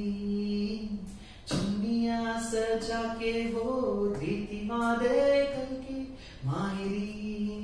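A man singing a Hindi pop song unaccompanied into a handheld microphone, holding long drawn-out notes, with brief breaks for breath about a second in and again near the end.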